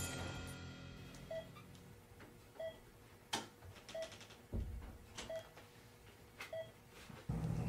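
Faint, slow beeps from a hospital patient monitor, evenly spaced a little over a second apart, following the patient's pulse, with a few soft clicks between them. The tail of the motorcycle crash fades out at the start, and a low hum comes in near the end.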